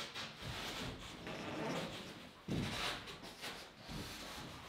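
Handling noises of a ceiling panel being held up and shifted against wooden ceiling joists: irregular rubbing and scraping, with a dull thump about two and a half seconds in.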